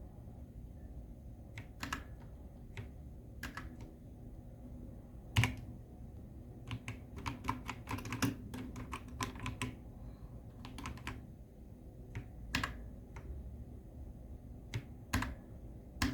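Zi You Lang K3 mechanical keyboard keys being pressed: separate clicky keystrokes every second or two, with a quicker run of presses in the middle.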